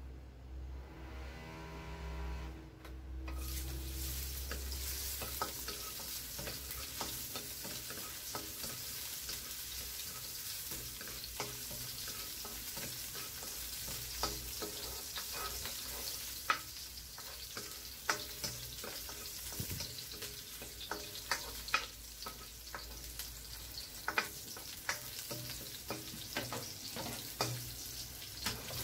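Chopped garlic sizzling in hot oil in a nonstick wok, the steady hiss starting about three seconds in. A plastic spatula stirs it, clicking and scraping against the pan, more often in the second half.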